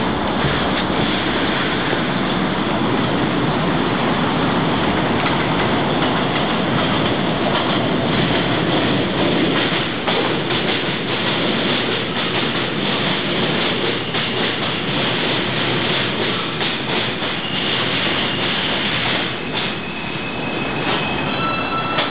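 New York City subway train (M train) pulling in along the platform: a steady rumble and clatter of steel wheels on the rails. Near the end, a few thin squealing tones come in as it slows to a stop.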